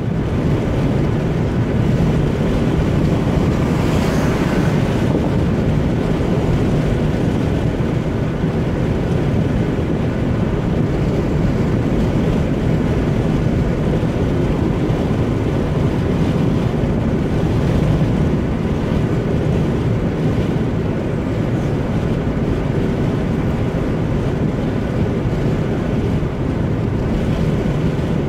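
Steady low road and tyre rumble with wind noise inside a car's cabin at motorway speed. A faint brief hiss comes about four seconds in.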